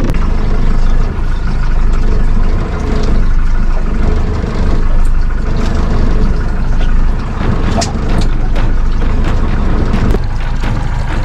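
Boat engine running steadily, a continuous low rumble with a few faint knocks over it.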